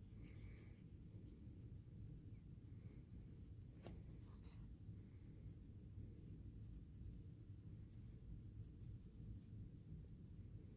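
Faint, rapid scratching of a cotton swab scrubbing caked-on old gunk from around the pinion and bearing of a small vintage model-locomotive motor housing, with one small click about four seconds in, over a low steady room hum.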